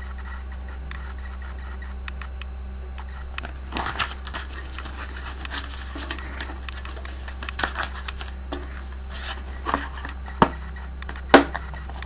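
Handling of a plastic DVD case, its disc and a paper insert: rustling with scattered sharp plastic clicks and taps, the two loudest snaps near the end, over a steady low hum.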